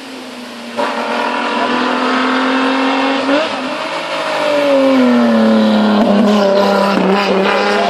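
Race car engine revving hard as the car climbs toward the listener and passes close by. The pitch rises and falls through gear changes, and the engine gets louder from about five seconds in.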